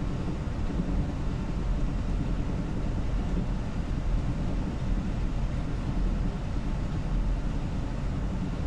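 Steady low rumble and wash aboard a geared bulk carrier under way through a rough sea, even throughout with no single events.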